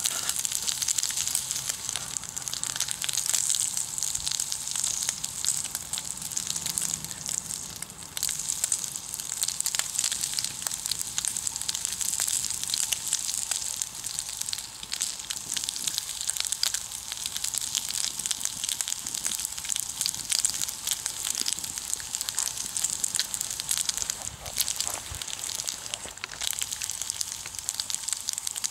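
Bacon frying in a pan, a steady sizzle with constant fine spitting crackles.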